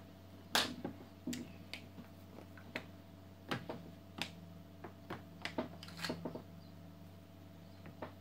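Makeup being handled: a string of irregular light clicks and taps from brushes and eyeshadow palettes, bunched over about six seconds, with one more near the end, over a steady low hum.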